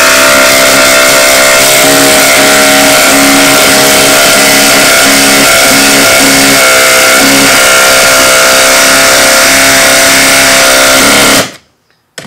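Ryobi P238 brushless 18V impact driver hammering a 6-inch lag screw into wood, running loud and nonstop under heavy load, then stopping abruptly shortly before the end as the screw is driven fully home.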